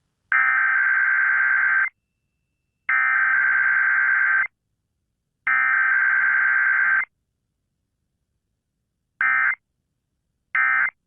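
Emergency Alert System SAME data bursts: three long buzzing two-tone digital bursts, about a second apart, sending the alert header, then two short bursts near the end, the start of the end-of-message code.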